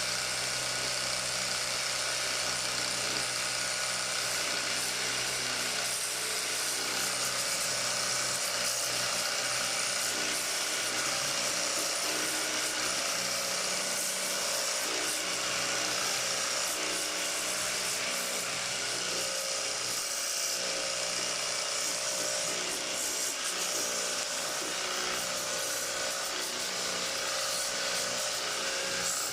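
Small electric pressure washer running steadily, its motor humming under the hiss of the water jet as it sprays the indoor unit of a split air conditioner.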